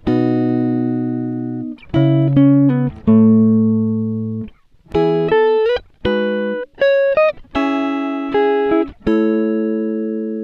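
Background music: a plucked guitar playing single notes and short phrases, each note starting sharply and fading away, with a few slides between pitches.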